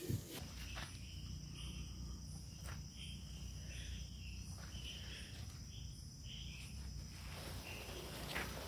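Faint insects chirping, likely crickets, in short repeated calls over a thin steady high tone, with a low steady hum underneath.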